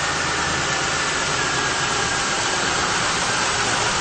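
Car engine idling steadily just after starting, with an even hiss and a faint high whistle over the rumble. The engine has an intake vacuum leak, bad enough to stall it.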